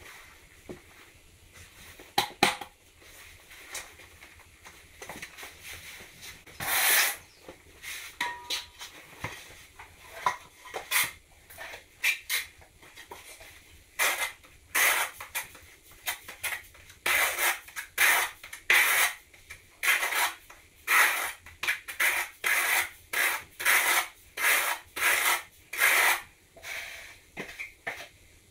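Steel trowel scraping thin-set mortar, loading it off a board and spreading it on the back of a floor tile, in repeated strokes that settle into about one or two a second from about halfway through. A sharp knock sounds about two seconds in.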